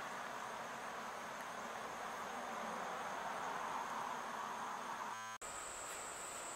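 Steady outdoor insect chorus with a thin, continuous high trill. About five seconds in the sound cuts out for a moment, and the trill comes back a little higher.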